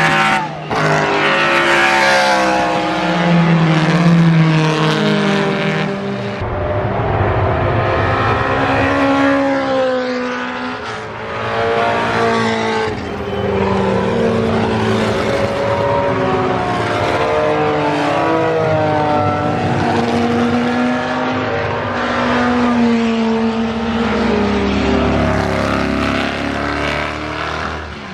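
Historic BRM racing cars passing one after another at speed, among them the front-engined BRM V16 with its supercharged 1.5-litre sixteen-cylinder engine. The multi-cylinder engine notes are loud and rise and fall in pitch as each car goes by.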